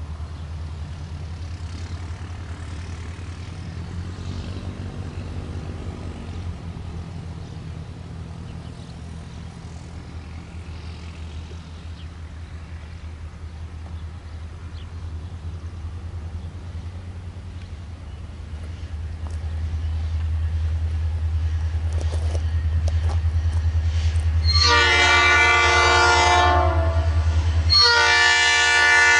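Approaching diesel freight locomotive: a low engine drone that grows louder about two-thirds of the way in, then the locomotive's air horn sounding a long blast for the crossing and, after a brief break, a second blast near the end.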